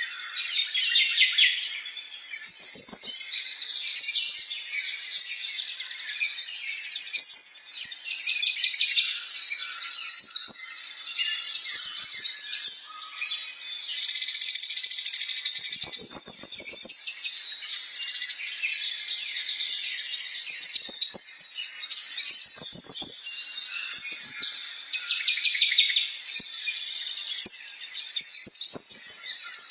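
Many small birds chirping and trilling at once, a dense, overlapping chorus of rapid high twitters without a break. A few faint low knocks sound under it now and then.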